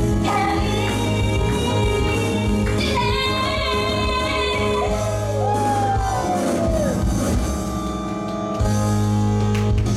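A young woman singing a pop song into a microphone over a backing track with a steady bass line, holding long notes with a few sliding pitch changes.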